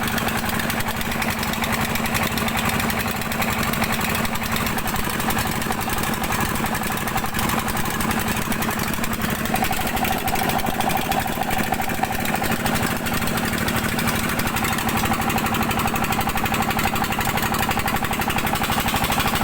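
Dompeng single-cylinder diesel engine of a gold-mining rig running steadily with a fast, even firing rhythm; a higher steady note joins about halfway through.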